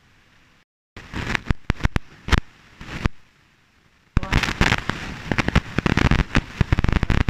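Methi paratha crackling and sizzling on a hot iron tawa: a few loud separate pops and crackles at first, then dense, continuous crackling from about four seconds in.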